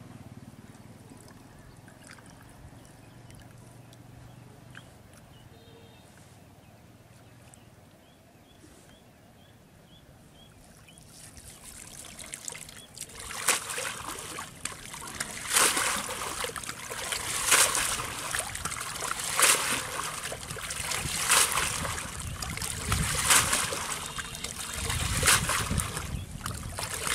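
Water splashing and sloshing as a bundled cast net is plunged and swished in shallow water to rinse it. The splashes start about halfway through and come again roughly every two seconds; before that it is quiet.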